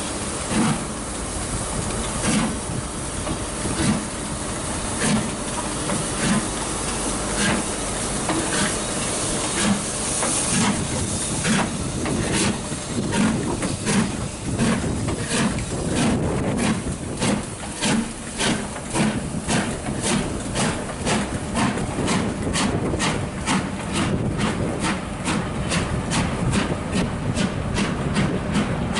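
LMS Black 5 steam locomotive, a two-cylinder 4-6-0, pulling a train away from a standstill. Its exhaust beats start about one a second and quicken steadily to about three a second as it gathers speed, with a hiss of steam throughout.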